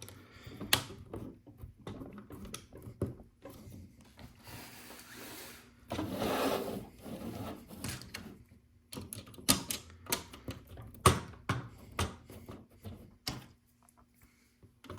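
Plastic LEGO pieces clicking and snapping together as they are handled and pressed into place, in irregular sharp clicks, with a stretch of rustling about five to seven seconds in.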